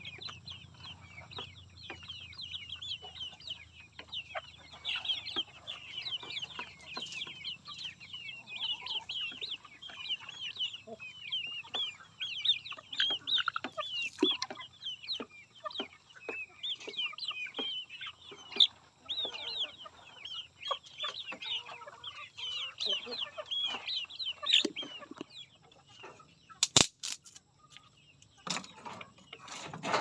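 A flock of young chickens feeding, with constant high peeping and clucking from many birds at once and scattered light taps. A single sharp knock near the end.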